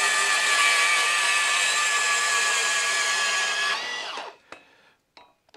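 Makita cordless portable bandsaw with a 12 to 14 teeth-per-inch blade cutting through thin-wall steel box section with a steady high whine. Near the end of the cut the trigger is released and the motor winds down with falling pitch, followed by a couple of light clicks and near silence.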